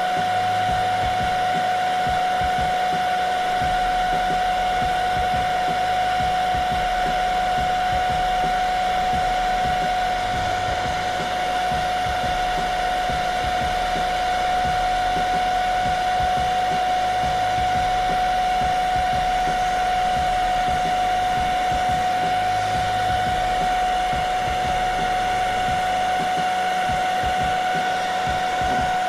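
Rowenta Collection hair dryer running steadily on its lowest speed and lowest heat setting: a rush of air with a steady high motor whine.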